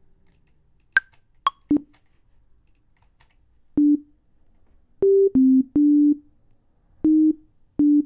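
A short, halting melody from Ableton Live's Operator synthesizer playing back a recorded MIDI clip: about seven short, plain beep-like notes in a low-middle register, irregularly spaced. Two short high clicks come about a second in.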